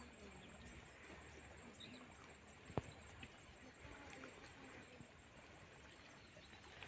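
Near silence: faint outdoor ambience, with one sharp click about three seconds in.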